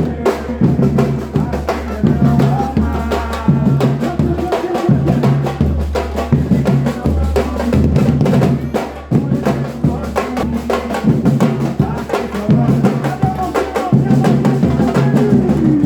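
Street drum ensemble playing in Pelourinho style: deep bass drums pounding a steady rhythm under sharp, fast strikes from higher drums, with voices over it.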